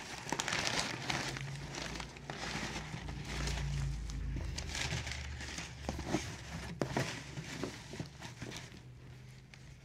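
Crumpled kraft packing paper and bubble wrap rustling and crinkling as bubble-wrapped frames are lifted out of a cardboard box, with scattered light clicks and a few knocks against the box.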